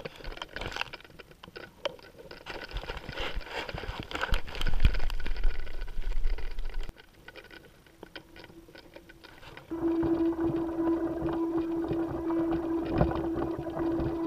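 Rustling and knocking handling noise from a camera worn on a spacesuit, with sharp clicks in the first seven seconds. It quiets for a few seconds, then about ten seconds in a steady low hum sets in under the noise.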